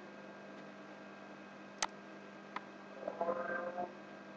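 Steady low electrical hum of a recording setup, with two sharp mouse clicks a little under a second apart near the middle. A short faint warbling sound follows about three seconds in.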